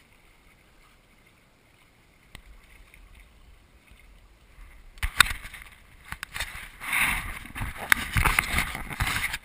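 Faint, even water-and-wind noise aboard a small sailboat. About five seconds in, it is overtaken by loud rubbing and irregular knocks of a hand handling the camera close to its microphone, which cut off suddenly near the end.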